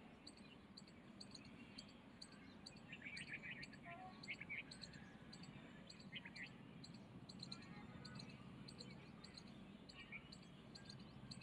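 Near silence: faint room tone with a few faint bird chirps now and then and light high ticks.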